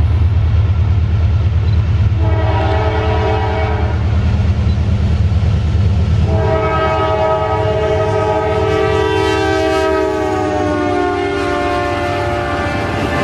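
Norfolk Southern diesel freight train rumbling past while its multi-note air horn sounds a short blast, then a long one whose pitch drops slightly near the end.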